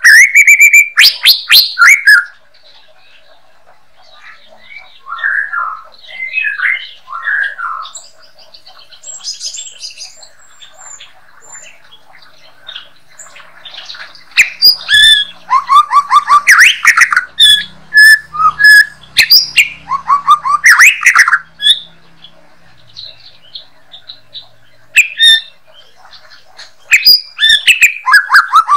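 White-rumped shama singing a varied song of whistles and rapid, clicking chatter. It comes in loud bursts at the start, through the middle and again near the end, with softer, quieter phrases in between.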